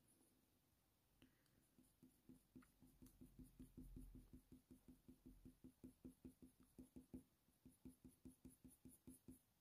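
Faint, rapid scratching of a Faber-Castell Polychromos coloured pencil shading on hot-press watercolour paper, in short repeated strokes about five a second, starting about a second in.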